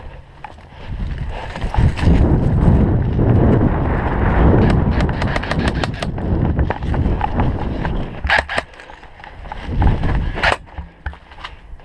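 Heavy rumbling and rustling movement noise on the microphone, with a rapid run of sharp clicks in the middle. A few louder sharp snaps come later, near the end.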